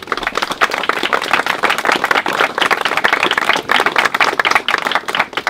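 Applause from a small crowd of people standing outdoors: many hands clapping irregularly.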